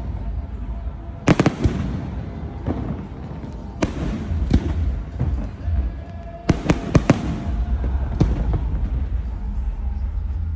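Aerial firework shells bursting in sharp bangs: a few spaced out in the first half, then a quick cluster of bangs a little past halfway, over a steady low rumble.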